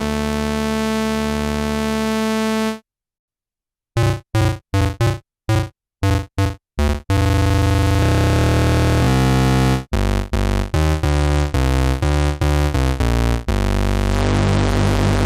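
Modal Electronics Cobalt8 virtual analog polyphonic synthesizer playing a demo patch. A held chord cuts off about three seconds in. After a short silence come a run of short staccato notes, then a bass-heavy line of held notes that change about twice a second.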